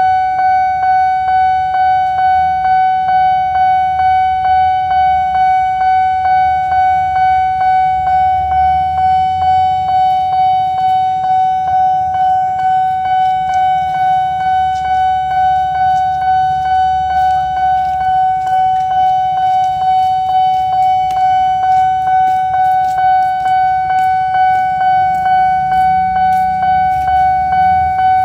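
Railway level crossing warning bell ringing in a steady repeating rhythm, a single ringing tone struck over and over while the crossing is closed, with a low traffic rumble underneath.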